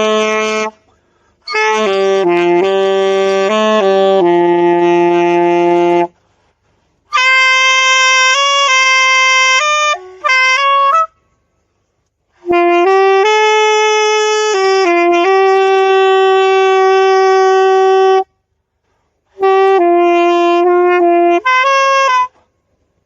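A wind instrument played solo: a slow melody of held notes in four phrases, with short pauses between them.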